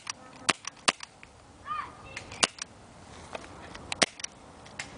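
Smith & Wesson M&P40 airsoft pistol firing a string of sharp, irregularly spaced shots, firing until the magazine runs dry.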